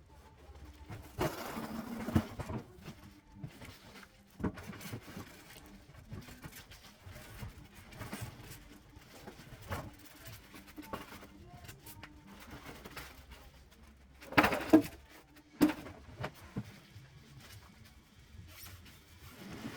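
Scattered handling noise: rustling, scraping and light knocks, with louder bursts of rustling and knocking about a second in and again about fourteen seconds in.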